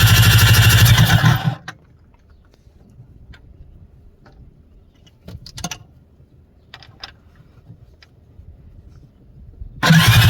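Yamaha SuperJet 700 stand-up jet ski's two-stroke twin engine running loudly, cutting off about a second and a half in. A few light clicks and knocks follow, and the engine comes back on suddenly near the end.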